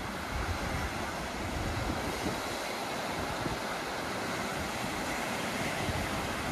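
Small waves breaking and washing up a sandy beach in a steady surf wash, with wind rumbling on the microphone.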